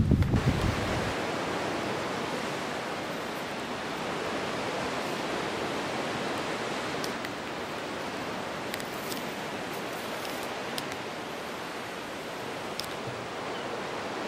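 Steady hiss of sea surf washing onto a rocky shore, with a low wind rumble on the microphone dying away in the first second.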